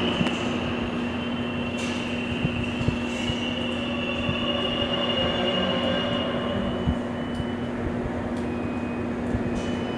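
Subway station ambience: a train's steady rumble with a thin, high wheel squeal that fades out about seven seconds in, over a steady low hum.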